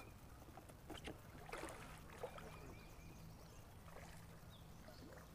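Near silence on the water: a faint steady low hum with a few soft, scattered splashes and ticks while a small largemouth bass is reeled in to the boat.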